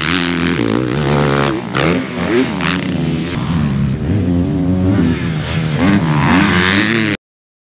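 Four-stroke motocross bike engines revving hard, their pitch climbing and dropping again and again as the throttle opens and the gears change. The sound cuts off suddenly about seven seconds in.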